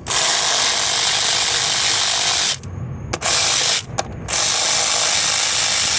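A ratchet wrench with a 10 mm socket ratcheting quickly as ignition coil hold-down bolts are backed out: a continuous rasp of clicks for about two and a half seconds, a short burst about three seconds in, then another long run near the end.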